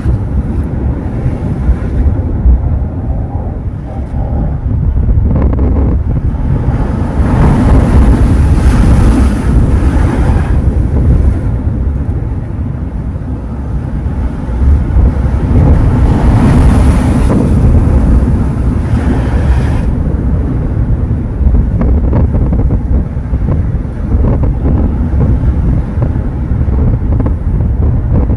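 Ocean surf: two waves break and wash in, about six and fifteen seconds in, each swelling for a few seconds. Wind buffets the microphone throughout as a constant low rumble.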